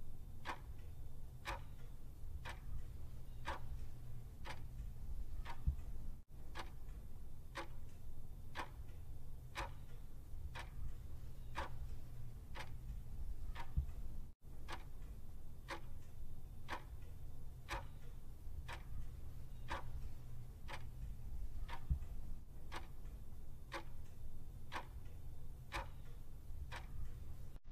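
Clock-ticking sound effect marking a countdown timer: steady, even ticks over a low hum.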